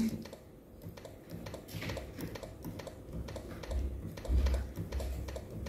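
Keys of an ASUS TUF Gaming F15 laptop keyboard pressed over and over, light key clicks, with a few heavier, duller taps about four seconds in. The keys are dead ones being tested, and they respond only some of the time, which the owner puts down to dirt inside the keyboard.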